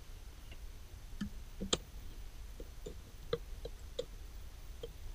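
Light clicks and taps of plastic being handled: a screw cap twisted off a plastic bottle and a plastic funnel fitted into the bottle's neck. About a dozen short, irregular clicks, the sharpest about two seconds in.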